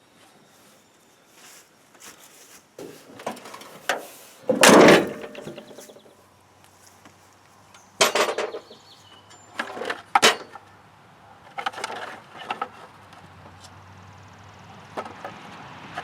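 Hand tools and metal parts clinking and knocking while a truck battery is being connected to the repaired winch wiring, with the loudest knock about five seconds in.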